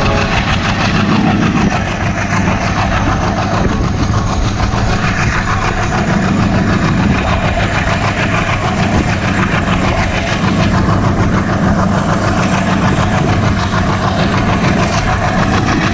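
Passenger train running steadily, heard from aboard: a constant rumble with rapid clicking of the wheels over the rail joints.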